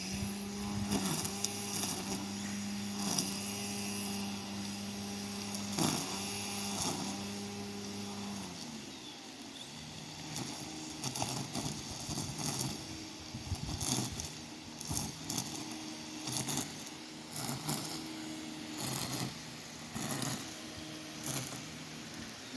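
Gas string trimmer (weed whacker) running at high speed with short dips in engine speed as it cuts tall pasture grass, then dropping to a lower, wavering speed about eight seconds in. Frequent sharp clicks run over the engine sound.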